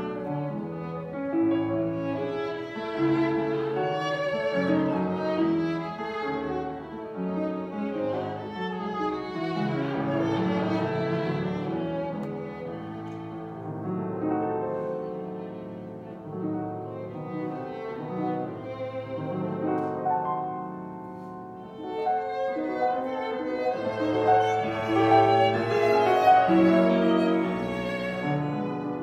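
Live classical music on violin and other bowed strings with piano, in sustained overlapping notes that grow louder in the last third.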